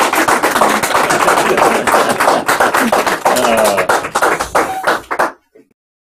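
Small audience clapping, mixed with laughter and a few voices, after a joke's punchline. The applause cuts off abruptly about five seconds in.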